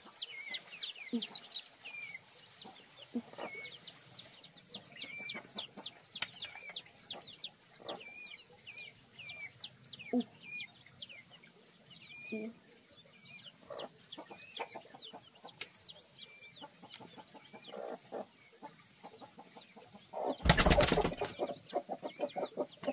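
Young chicks peeping steadily, each peep a high note falling in pitch, with a few low clucks from a hen. A brief loud flapping rustle comes about twenty seconds in.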